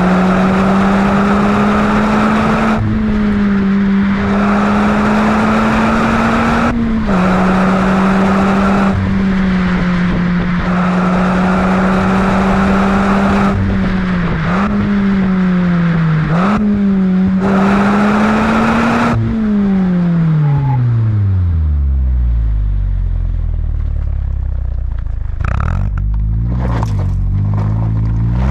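2022 Mazda MX-5's 2.0-litre four-cylinder engine through a Friedrich Motorsport Group A cat-back exhaust, running hard at high revs. The pitch dips briefly at each shift or throttle lift, about five times. About two-thirds of the way through the revs fall steadily away to a low rumble.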